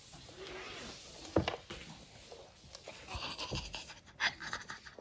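A baby breathing hard with small effort sounds while crawling and reaching for a toy, with a single knock about a second and a half in.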